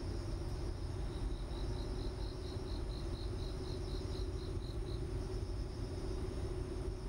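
A high, evenly repeated chirp, about four a second, starting about a second in and stopping about four seconds later, over a steady background hum and hiss.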